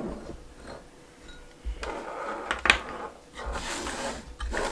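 Handling sounds from an electric scent lamp and its packaging: scattered knocks and clicks with some rustling, the sharpest click about two and a half seconds in.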